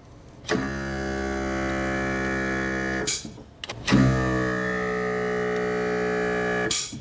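Demco Stay-IN-Play DUO supplemental braking system activating on a breakaway test, showing it works: its motor drones steadily for about two and a half seconds, a short hiss follows, and it runs again for about three seconds while the brake pedal is pushed down.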